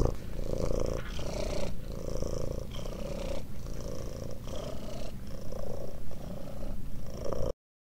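Grey Scottish Fold cat purring steadily as it lies relaxed on its back, the purr pulsing in and out with each breath. It cuts off suddenly near the end.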